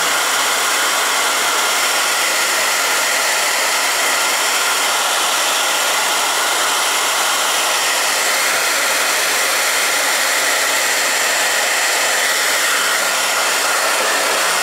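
Hand-held hair dryer running steadily, blow-drying hair: a constant rush of air with a faint steady whine.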